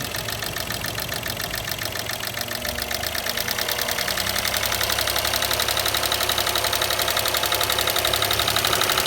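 Volkswagen Up 1.0 MPI three-cylinder engine running with a rapid, even mechanical ticking. The engine is raised gently above idle from about two and a half seconds in, and the ticking grows louder with it. The shop traced this noise to the cylinder head.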